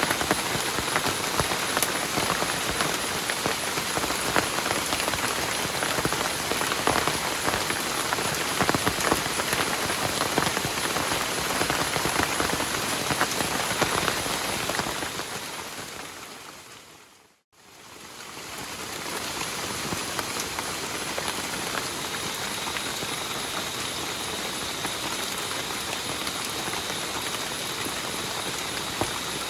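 Heavy rain falling steadily with a dense patter of drops. About halfway through it fades out to silence and fades back in, a little quieter.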